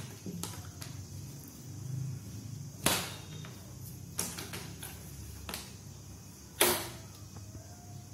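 Knocks and thumps on a wooden cabinet door as a cat leaps and paws at it, with the two loudest knocks about three seconds in and about six and a half seconds in, and lighter taps between.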